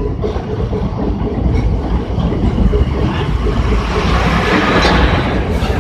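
Tram running along a street: a steady low rumble of wheels on rails, with a rising hiss that swells about four to five seconds in and a couple of light clicks near the end.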